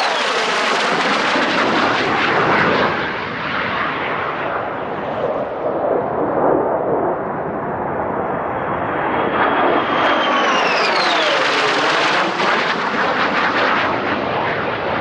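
Low-flying military jets passing one after another: loud jet engine noise with a crackle. About ten seconds in, a whine falls in pitch as one jet goes by.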